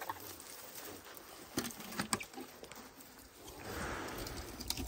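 African elephants feeding on thorny branches right beside the microphone: a few sharp cracks of twigs breaking, then a breathy rush at about four seconds as a trunk comes up against it.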